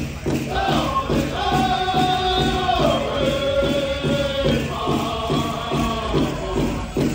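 Powwow drum group: a big drum struck in a steady beat of about three to four beats a second, with the singers' voices in long held notes stepping down in pitch.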